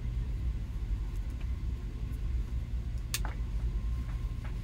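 A steady low rumble of background noise, with a single sharp click about three seconds in.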